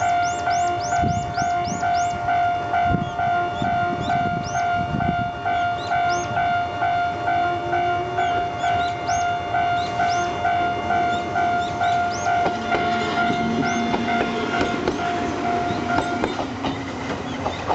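Japanese railway level-crossing alarm, an electronic tone imitating a gong-type bell, ringing about twice a second while a train passes over the crossing with wheel thumps and a rising motor hum. The alarm stops about 16 seconds in.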